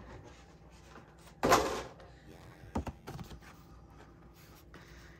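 Packaging being handled as a jumbo Pokémon card is taken out: a brief, loud swish of the card sliding free about a second and a half in, then a couple of small clicks and faint rustling.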